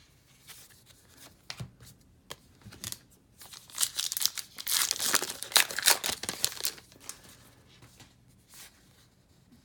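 A baseball card pack wrapper being torn open and crinkled, with a dense crackling stretch from about three and a half to seven seconds in and a few faint clicks before it.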